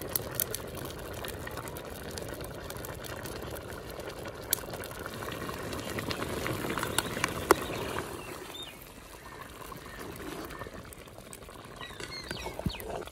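Pot of rice and peas at a rolling boil, bubbling and popping steadily as the rice takes up the last of the water. It gets quieter about eight seconds in.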